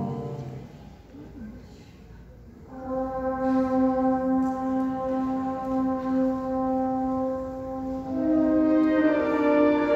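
Symphonic wind band playing live: a loud chord fades away in the first second, a short hush follows, then a long steady note enters about three seconds in and holds, with more instruments joining it near the end.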